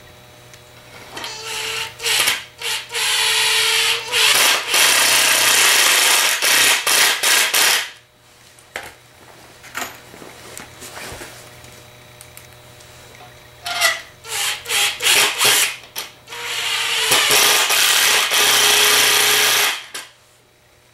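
Impact driver driving long wood screws into 2x4 lumber: a few short bursts, then a loud run of several seconds, done twice, with quieter knocks and handling clicks between the two screws.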